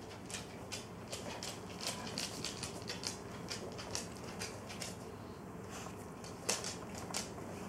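Dog mouth noises: a quick, irregular run of faint clicks and smacks, with one louder click near the end.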